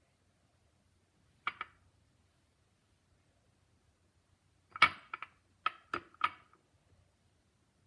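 A few light clicks and taps of kitchenware being handled: two close together about a second and a half in, then a quick cluster of five or so around five to six seconds in.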